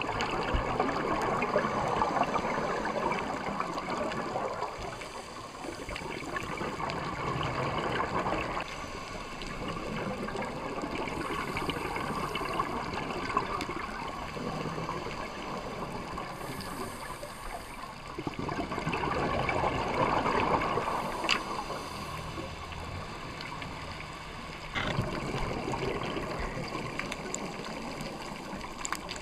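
Scuba divers' exhaled bubbles rushing and gurgling from their regulators underwater, swelling in surges several seconds apart with each breath out.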